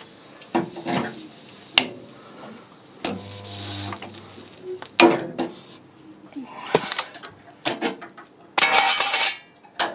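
Pincer spot welder firing once, a low steady buzz lasting about a second as a spot weld goes into the steel flange. Around it, scattered metal clicks and clanks of the welder arms and locking-pliers clamps being handled, with a clamp released and rattled off near the end.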